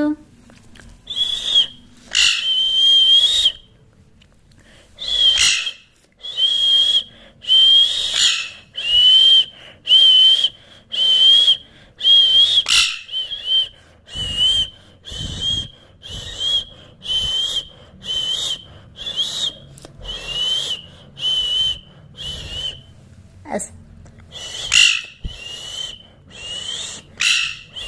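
Pet parrot giving short, shrill, rasping calls over and over, about one a second, with a couple of brief pauses.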